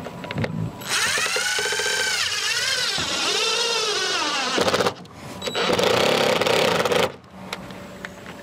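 Cordless drill running in two bursts as it drives screws, its motor whine rising and falling in pitch with the trigger and the load. The first burst lasts about four seconds, the second about a second and a half after a short pause.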